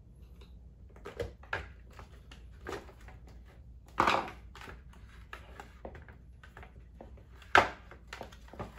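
Scattered clicks, knocks and scrapes of plastic and metal as a carpet cleaner's motor is pried with a screwdriver and pulled out of its plastic housing, with two louder knocks, one about four seconds in and one near the end.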